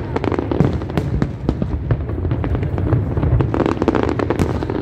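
Large aerial fireworks display: a rapid, continuous run of shell bursts, sharp bangs and crackling over a steady low rumble.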